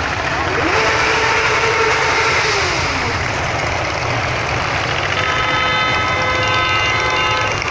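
A procession of motorcycles riding past with engines running; in the first few seconds one engine's pitch rises, holds and falls. From about five seconds in a horn sounds steadily.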